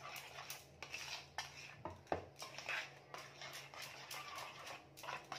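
A spoon stirring and knocking against the sides of a bowl as oil is mixed into mashed banana and sugar: a quick, irregular run of clinks and scrapes.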